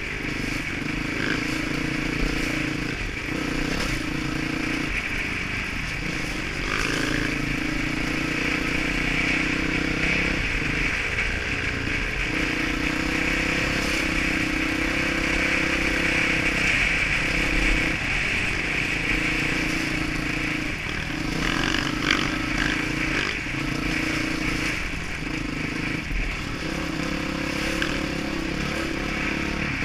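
Dirt bike engine running along a trail, heard from the rider's helmet. The throttle opens and closes every couple of seconds, so the engine note keeps rising, dropping and changing pitch.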